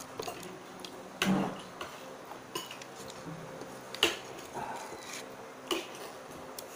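Occasional sharp clinks and taps of a plate and cutlery as food is picked apart by hand over the plate, about half a dozen in all, the sharpest about four seconds in.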